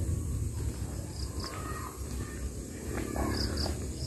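Wild birds calling: a pair of short, high chirps repeating about every two seconds, and a lower call about three seconds in, over a steady low rumble.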